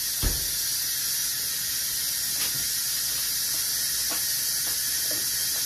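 An oven door shutting with a single thump just after the start, over a steady hiss; a couple of light knocks follow.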